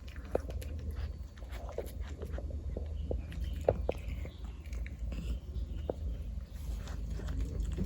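A cat eating wet tuna in gravy up close: irregular wet smacks and clicks of its chewing and biting, over a steady low hum.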